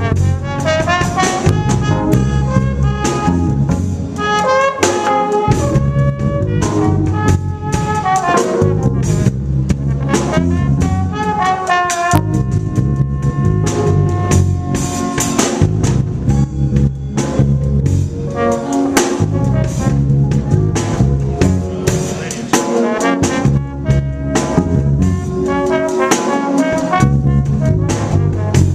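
Live band with a horn section of two trumpets and a trombone playing over drum kit, bass and keyboards, with a steady beat.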